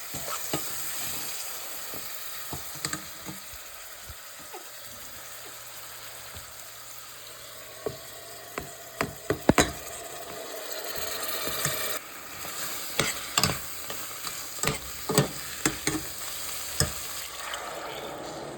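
Food sizzling in a hot pan while it is stirred, with a steady frying hiss and a utensil knocking and scraping against the pan many times, most often in the middle and near the end.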